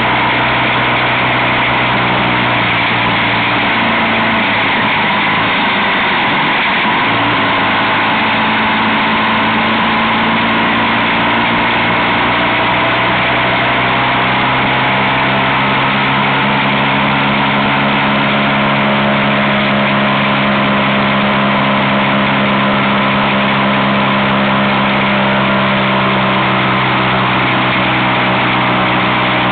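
Motorcycle engine running at a steady road speed, mixed with wind and road noise. About six to seven seconds in, the engine note dips briefly, then settles at a slightly higher pitch and holds steady.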